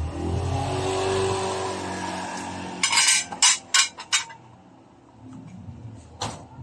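A steady pitched hum that fades over about three seconds, then a quick run of five or six sharp metallic clinks, like metal tools or parts knocking together, and one more clink near the end.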